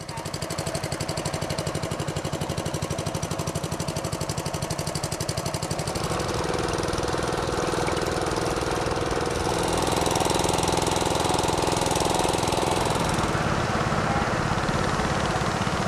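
Motorized wooden river boat's engine running steadily with a fast, even chugging beat. It gets somewhat louder about six seconds in.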